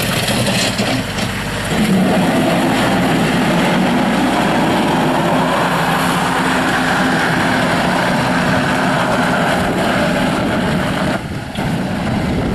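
Kubota L35 compact tractor loader backhoe's diesel engine running. It picks up revs about two seconds in, holds steady, and drops back briefly near the end.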